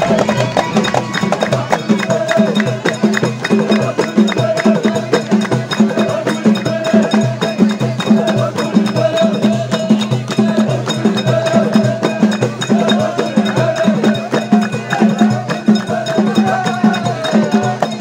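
Traditional folk music performed live by a crowd: hands clapping in a steady rhythm over a drum beat, with voices chanting along.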